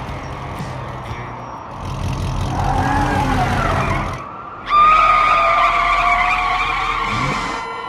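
Cartoon vehicle sound effects: a low engine rumble, then a sudden loud, high squeal just under five seconds in that holds for about three seconds, like tyres skidding.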